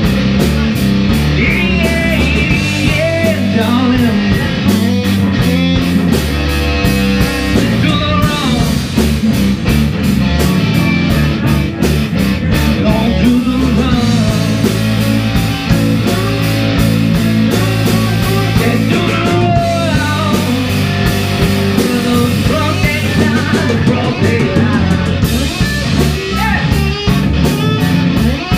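Live rock band playing: electric guitars, bass guitar and a drum kit, with a steady beat from the cymbals.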